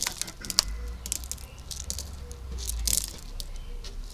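Dry pigeon corn mix of maize, peas and smaller grains rustling and clicking as a hand scoops and handles it in a bin, in scattered crunchy bursts with a few louder rattles near the start and about three seconds in.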